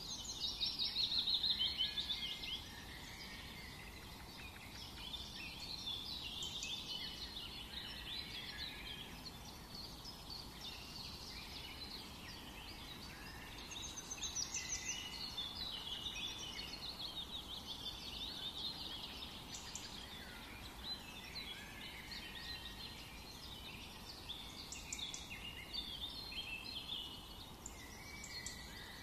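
Small birds chirping and twittering continuously, several at once, with a louder trill about a second in.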